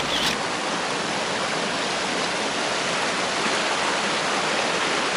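Forest creek rushing over rocks: a steady, even rush of running water.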